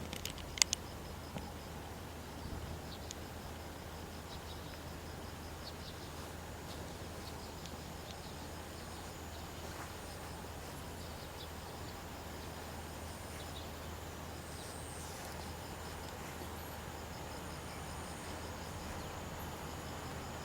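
Faint outdoor ambience of insects chirping in a steady, evenly repeating high pulse, over a steady low hum. A few sharp clicks sound right at the start.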